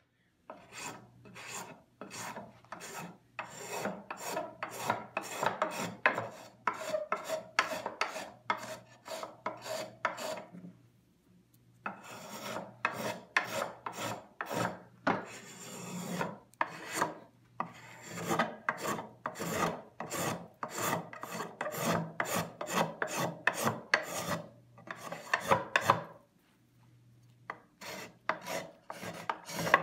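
Small hand plane shaving a curved mahogany carving blank in quick, repeated scraping strokes, about two a second, with two short pauses.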